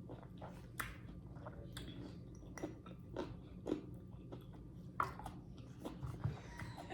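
A person chewing fruit close to the microphone: irregular soft mouth clicks and smacks, roughly every half second.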